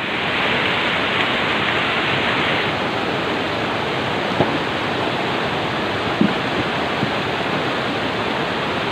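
Rushing mountain stream pouring over boulders: a steady wash of water, a little brighter in the first couple of seconds. A few faint knocks stand out about four and six seconds in.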